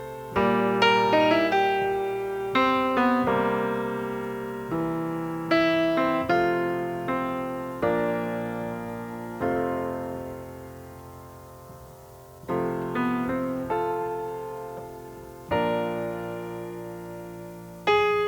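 Solo piano playing slow chords, each struck and left to ring and fade. About halfway through, one long chord dies away before the playing picks up again.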